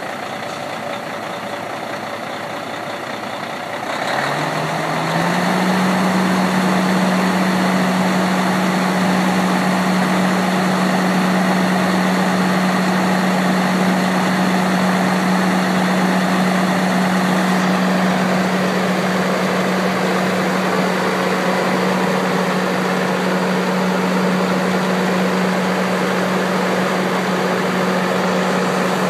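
2004 Peterbilt 387 semi truck's diesel engine running while parked. About four seconds in it gets louder and its steady hum steps up in pitch, settling at a higher idle that holds steady.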